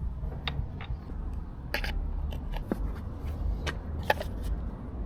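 Scattered light clicks and taps, like a bottle or filler cap being handled, over a steady low rumble, as the engine oil is refilled on a Yamaha FZ6.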